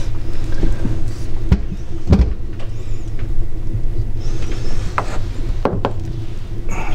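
Wooden pressed-sushi (oshizushi) mold knocking against the wooden counter several times as it is taken apart around a block of pressed mackerel sushi, over a steady low hum.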